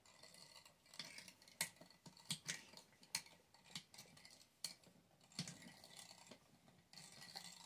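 Light, irregular metal clicks and taps as the lid and latch clamps of a stainless steel electric grinder are handled and adjusted, about a dozen in all.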